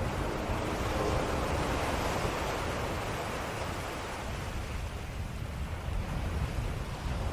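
Ocean waves breaking and washing on a shore in a steady surf, easing a little in the middle and swelling again near the end.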